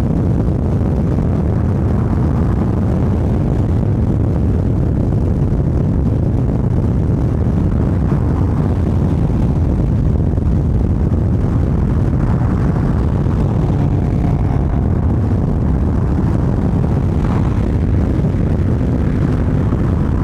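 Loud, steady rush of wind buffeting the microphone, mixed with road and tyre noise, from a car moving at freeway speed.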